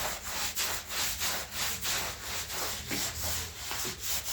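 Broom scrubbing a hard floor in quick, rhythmic back-and-forth strokes, about three a second.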